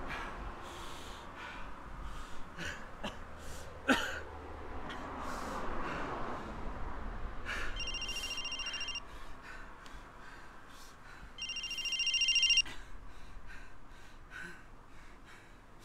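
A man's heavy, ragged breathing and gasps, with one sharp gasp about four seconds in. A mobile phone's electronic ringtone sounds in two short bursts, the first at about eight seconds and the second, louder, at about eleven and a half seconds.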